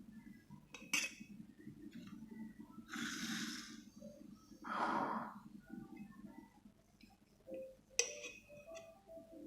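Kitchen handling as honey is spooned into a hollowed-out turnip: a spoon clinks sharply about a second in and again near the end. In between come two short hissing rushes of noise over a low steady hum.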